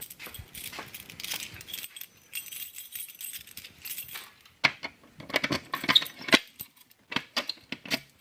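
Irregular clicks and light metallic jingling, like keys or small metal parts being handled, with a denser run of sharp clicks from about halfway through.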